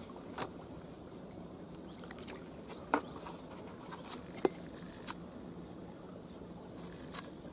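Quiet waterside ambience: a faint steady rush, broken by a few sharp clicks, the loudest about three seconds in and another about four and a half seconds in.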